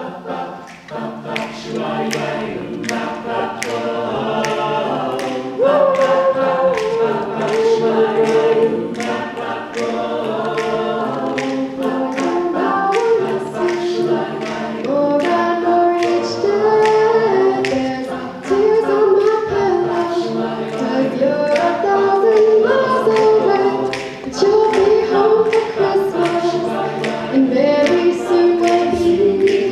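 Stage choir singing in harmony, one singer on a handheld microphone, over a steady beat of sharp clicks about twice a second.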